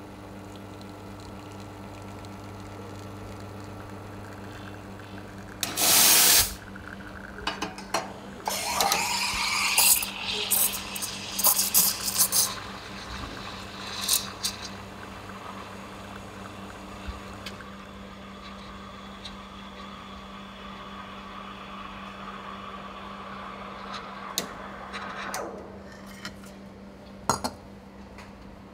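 Rancilio Specialty RS1-2G espresso machine: a steady hum while the espresso shot pours, then the steam wand purged with a loud hiss about six seconds in. The wand then steams milk in a stainless pitcher, first an uneven, chirping hiss as air is drawn into the milk, then a smoother steady hiss as the milk heats, stopping a few seconds before the end, followed by a few clicks.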